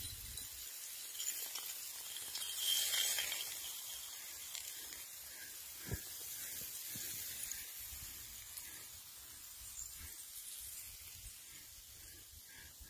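Loose snow sliding downhill over the snow surface with a steady hiss that swells about three seconds in and then slowly fades. A single sharp knock comes about halfway through.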